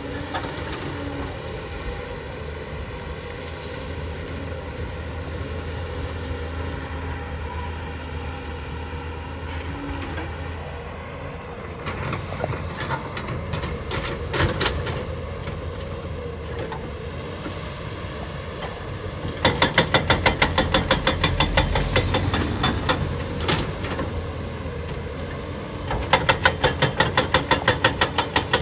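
JCB JS220 tracked excavator's diesel engine running steadily. Twice, from about two-thirds of the way in and again near the end, a rapid, even metallic clatter lasting a few seconds rises over it.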